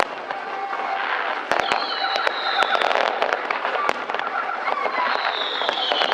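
Fireworks crackling in a dense run of sharp pops, with three high whistles that each glide slowly down in pitch over about a second.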